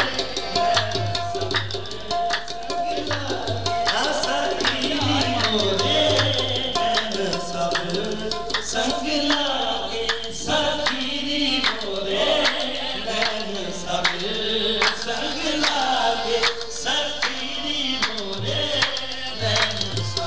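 A man singing into a microphone over a steady beat of hand drums.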